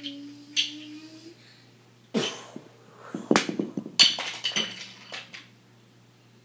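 A voice making play sound effects: a steady hummed tone, then a string of short raspy, hissing noises, the loudest about three and four seconds in.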